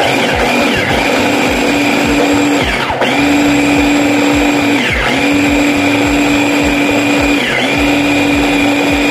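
Electric blender blending chopped vegetables, run in four bursts: the motor runs steadily, winds down in pitch at three short pauses and spins back up each time.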